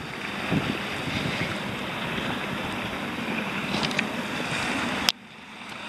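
Wind buffeting the microphone over water lapping around a kayak, a steady rushing noise that stops with a sharp click about five seconds in.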